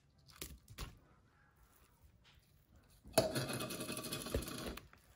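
A fork stirring crumbled sausage into beaten eggs in a plastic mixing bowl, scraping and clicking against the bowl, starting about three seconds in after a couple of light taps.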